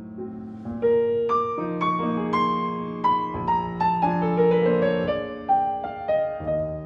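Background solo piano music: a slow melody stepping gradually downward over held lower notes, growing louder about a second in.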